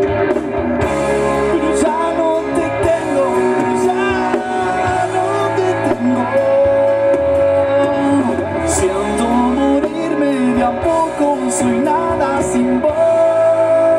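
Live rock band playing: a man singing over electric guitar, electric bass and drums, with cymbal hits now and then and a long held note near the end.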